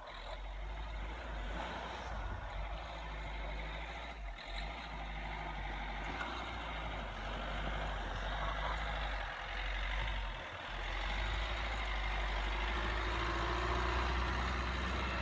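Car engines running as a Fiat Panda 4x4 drives up a snowy slope past an SUV, with a steady engine note that grows stronger near the end as the Panda climbs close by.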